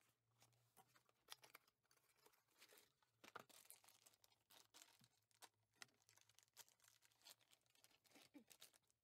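Near silence: faint scattered rustles and small clicks over a faint steady hum.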